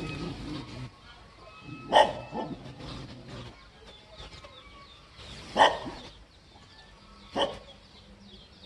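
A dog barking three times, single short barks a couple of seconds apart.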